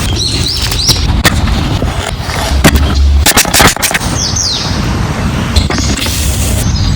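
Irregular knocks of a knife striking a wooden cutting board, with birds chirping briefly and wind rumbling on the microphone.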